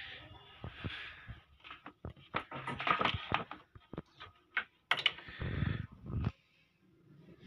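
Irregular clicks, taps and short scrapes of small tools and parts being handled on a workbench while a resistor is fitted to an amplifier circuit board.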